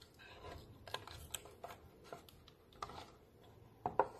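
Light, scattered crinkles and clicks of a thin plastic milk jug and tape being pressed and handled, with a couple of sharper taps near the end as the jug is turned on the table.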